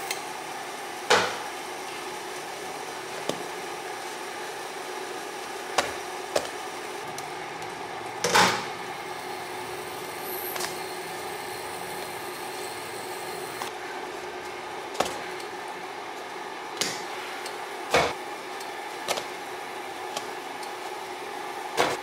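Scattered light knocks and taps, about ten of them, as pita breads are turned and lifted out of a dry nonstick pan by hand. A steady hum runs underneath.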